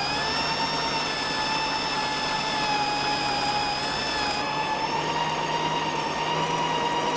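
Electric meat grinder running under load, mincing chunks of wild boar meat: a steady high motor whine with a low hum beneath, its pitch dipping and rising only slightly.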